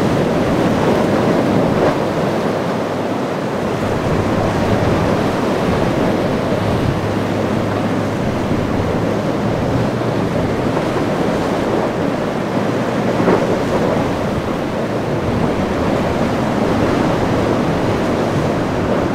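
Rough surf breaking and washing, with wind buffeting the microphone and a steady low drone from a large sportfishing boat's engines as it runs through the waves. One sharper crash comes about two-thirds of the way through.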